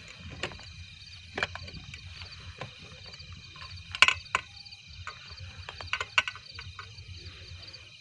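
A steady, high-pitched, trilling chorus of night creatures, with scattered clicks and knocks from a camera tripod being handled and set up. The sharpest knocks come about four seconds in and again around six seconds.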